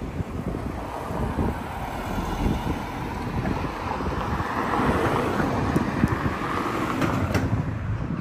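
Wind buffeting the phone's microphone: a rough, uneven rumble with a steady hiss over it.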